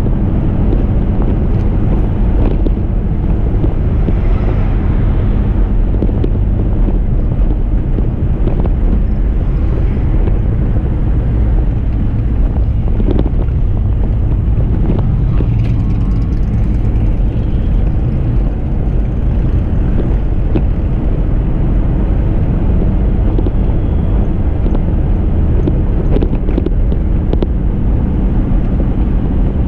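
1987 Dodge Ram half-ton pickup driving steadily, with engine and road noise and wind buffeting a microphone mounted outside the cab.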